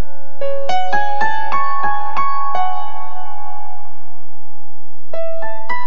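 Background music on a piano-style keyboard: a run of single struck notes, then one note left ringing and fading for a couple of seconds, then more notes starting near the end.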